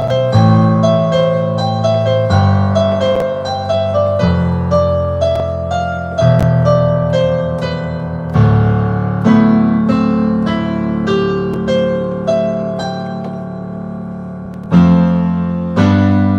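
Digital piano played by hand: sustained bass chords under a melody line, with new notes struck every second or so. The playing thins out and dies away for a moment before a loud new chord near the end.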